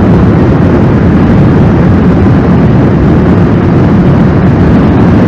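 Honda CBR929RR sportbike's inline-four engine running steadily at highway cruising speed, mixed with heavy wind rush over the helmet-mounted camera microphone.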